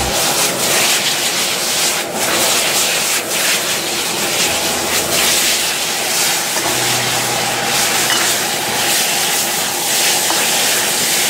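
High-output gas wok burner running at full flame under a wok, a steady loud rushing roar, with chicken pieces sizzling and being scraped and tossed with a spatula.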